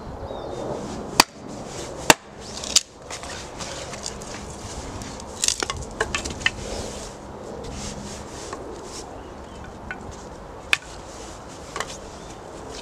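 Ray Mears axe splitting small sticks for kindling on a log: sharp wooden knocks as the blade strikes and bites, three loud ones in the first three seconds, a quick run of lighter taps around six seconds, and a few more near the end.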